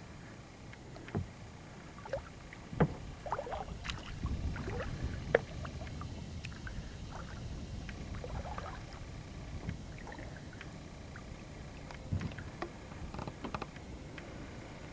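Kayak paddling: the paddle splashing and dripping in the water with each stroke, along with a few sharp knocks.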